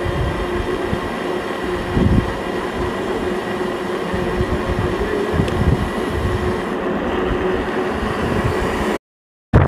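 Mountain bike riding on a dirt trail: a steady rolling rumble of tyres with wind buffeting the camera microphone and a steady low hum.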